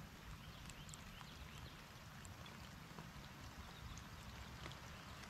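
Light rain falling on the lake and the kayak, heard faintly as scattered individual drop ticks over a low, steady rumble.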